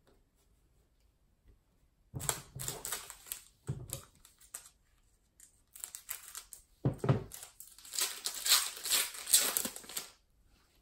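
Crinkling of a plastic trading-card pack wrapper as it is handled, snipped open with scissors and pulled apart. It starts about two seconds in, pauses briefly around the middle, and is busiest near the end.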